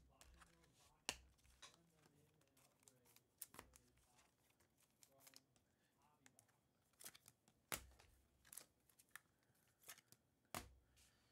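Faint handling of a stack of trading cards: soft sliding and rustling, broken by scattered sharp clicks as cards are flipped and set down, about five of them louder than the rest.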